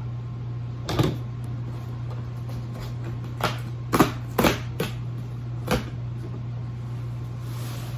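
A cardboard shipping box being handled and opened: about six short knocks and scuffs, the loudest about four seconds in, over a steady low hum.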